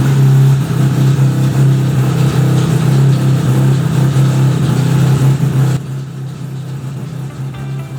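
1975 Suzuki RE5 rotary engine running at a steady speed, a constant low hum with mechanical noise over it. The owner reports an abnormal noise from the transmission when the engine runs. About six seconds in, the sound turns duller and quieter.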